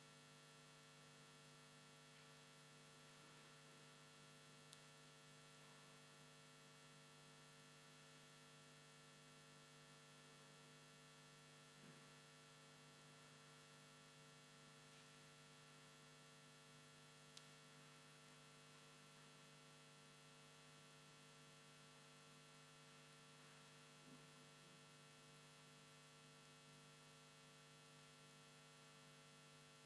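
Near silence: a steady electrical hum made of several constant tones, with a few faint, widely spaced clicks.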